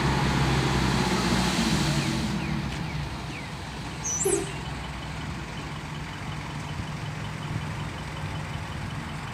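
Heavy diesel engine running, louder for the first two seconds and then easing down to a lower steady level. A brief squeal comes about four seconds in.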